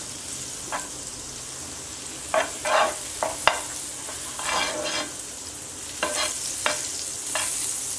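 Butter sizzling as it melts in a hot nonstick frying pan, while a fork pushes the lump of butter around, scraping on the pan in a series of short strokes.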